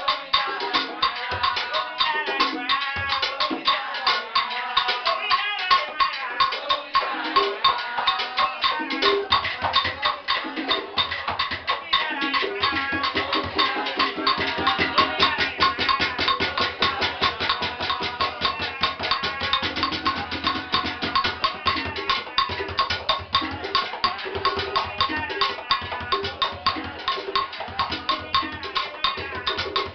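Rumba percussion: a wooden cajón and a pair of conga drums struck by hand in a fast, dense, driving rhythm.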